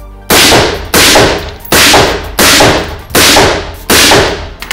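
Suppressed AR-15 rifle fired six times in quick semi-automatic succession, about 0.7 s apart, each shot a sharp crack that rings out in the echo of an indoor shooting range.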